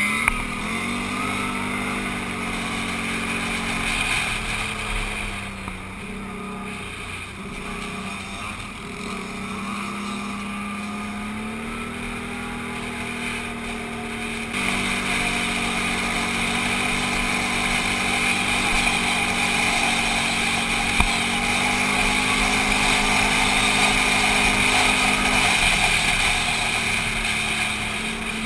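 ATV engine running under way, its pitch dipping and climbing with the throttle, over a steady hiss of wind and road noise. The sound changes abruptly about halfway through.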